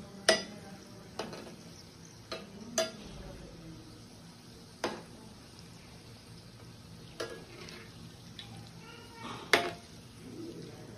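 Cheese corn balls deep-frying in hot oil in a steel pan, a low steady sizzle, with a metal spoon clinking sharply against the pan about seven times as they are stirred and turned.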